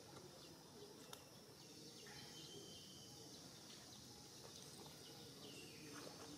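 Near silence: faint outdoor ambience with a few soft high chirps and a light click about a second in.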